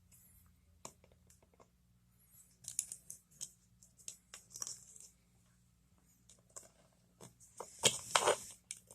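Small plastic clicks and scrapes as a refrigerator compressor's start relay and its cover are snapped back together by hand, in scattered bursts with the loudest cluster near the end, over a faint steady hum.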